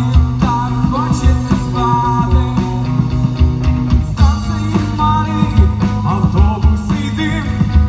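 Live rock band playing: drum kit, electric guitar and bass, with a steady low bass line under regular drum beats and bending guitar notes above.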